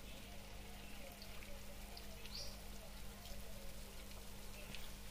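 Hot oil sizzling steadily with many small scattered crackles as battered pakoras deep-fry.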